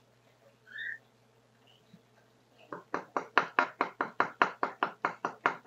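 Fast, even tapping on a wooden stingless-bee hive box, about six knocks a second, starting about halfway through. The box is being knocked to agitate the mandaçaia colony so that its foragers come out.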